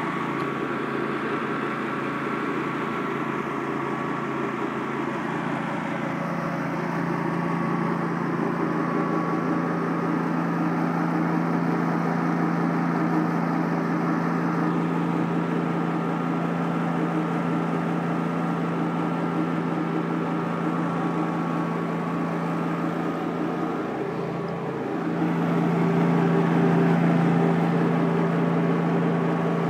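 Pressure washer running steadily: an even engine hum with the hiss of the water spray, getting louder near the end.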